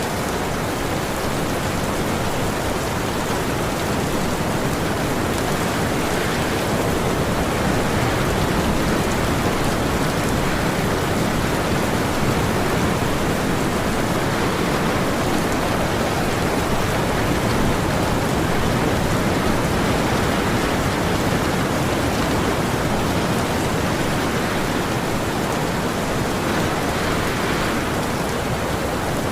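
Dense, steady storm ambience: heavy rain mixed with the wash of the sea and wind, an even rushing hiss that swells slightly now and then.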